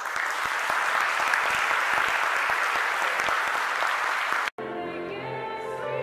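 Audience applause, cut off abruptly about four and a half seconds in, followed by instrumental music with sustained notes.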